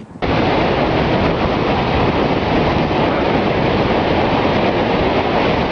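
Strong wind from a nearby tornado buffeting the microphone in a loud, steady rush that begins abruptly about a quarter second in.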